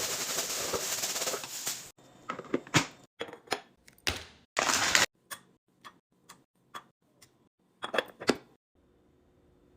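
Food containers and packaging being handled and set down while restocking a fridge: about two seconds of rustling, then a run of light clicks and knocks, with a brief rustle in the middle.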